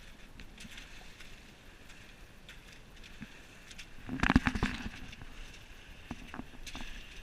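Small sailboat under way: water washing against the hull, with scattered light clicks and a short cluster of loud knocks about four seconds in.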